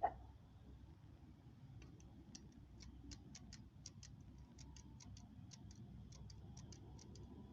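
A sharp click, then a run of light, quick ticks, about three or four a second and unevenly spaced, stopping shortly before the end.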